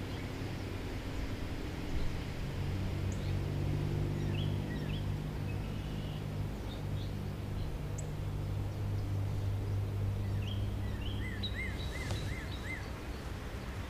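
Outdoor ambience: a steady low motor hum with small birds chirping now and then, in short bursts of arched chirps about four seconds in and again near the end.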